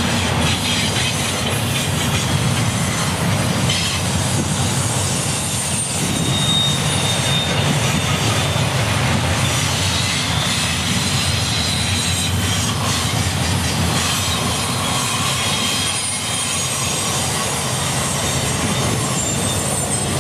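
Canadian National double-stack container train rolling past on its well cars: a steady rumble of steel wheels on rail, with faint high wheel squeals coming and going.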